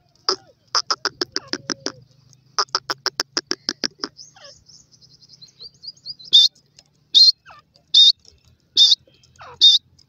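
Francolins (teetar) calling: two quick runs of short, sharp notes, about eight a second, then from about six seconds in loud, piercing single calls repeated a little more than once a second.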